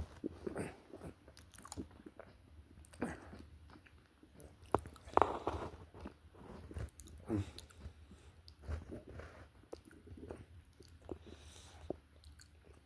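A person chewing a mouthful of Nature Valley lemon muffin bar, with irregular short mouth noises and smacks.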